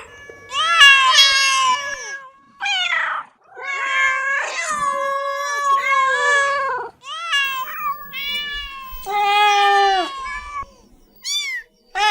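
Domestic cat meowing, a string of about half a dozen drawn-out meows at varying pitch with short pauses between them, the last one brief and high.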